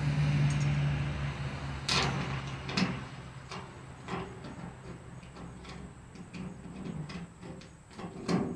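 Light metal clicks and scrapes as an Allen key turns a stainless steel button-head screw through a stainless flag-pole bracket into a rivet nut in an aluminum column. A low hum with a rushing noise fades away over the first two seconds.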